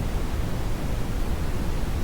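Synthetic brown noise: a steady, even rumbling hiss with most of its weight in the low end, unchanging throughout.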